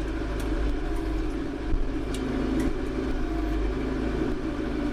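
Small farm tractor's engine running steadily, with a low even hum.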